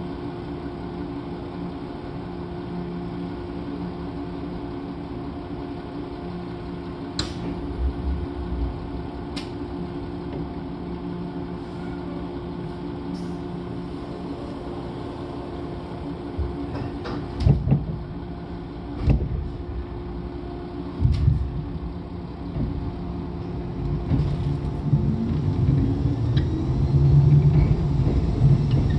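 103 series electric train standing with the steady hum of its on-board equipment. A few sharp knocks come past the middle, typical of the doors closing after the departure announcement. Near the end the traction motors start with a rising whine as the train begins to pull away.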